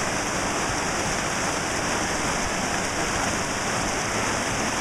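Mountain stream rushing and splashing over rocks in small cascades, a steady, unbroken water noise.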